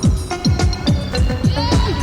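Electronic dance music with a fast deep kick drum, about four beats a second; a wavering melody line comes in near the end.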